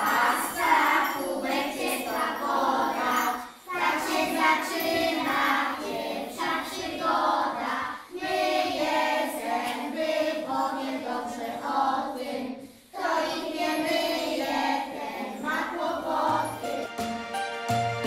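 A group of children singing a song together in chorus, in phrases with short breaks between them. Near the end the singing gives way to instrumental music.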